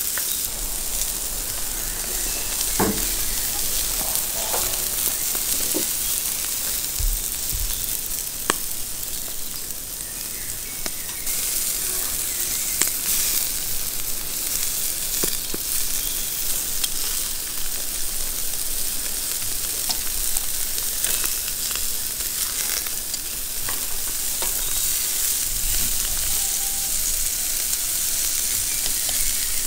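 Rabbit pieces sizzling and crackling steadily as they sear on a hot cast-iron grill grate, with a few short clicks of metal tongs against the grate as the pieces are turned.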